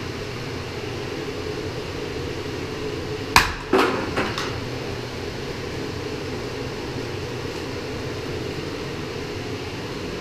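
Three short knocks and clicks in quick succession about three and a half seconds in, from white PEX tubing and tools being handled, over a steady background hum.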